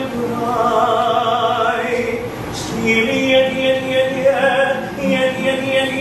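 Male classical singer singing a 17th-century English lute song with classical guitar accompaniment. He holds long notes and slides up in pitch about two seconds in.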